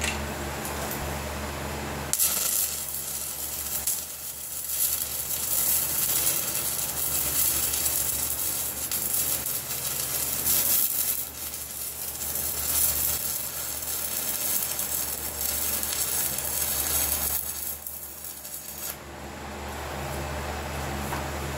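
Arc welding: the steady crackling sizzle of the welding arc, starting about two seconds in and stopping about two seconds before the end, as weld is laid to fill a wide gap around a pin sleeve on a tractor grader blade frame. A low steady hum is heard before the arc strikes and after it stops.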